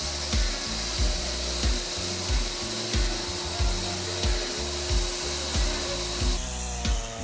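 A power saw cutting wood, with a steady hiss, under background music with a steady beat. The sawing sound changes abruptly near the end.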